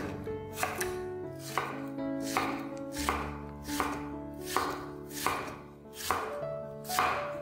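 Knife chopping food on a cutting board: crisp, evenly paced cuts about one every three-quarters of a second, with soft background music underneath.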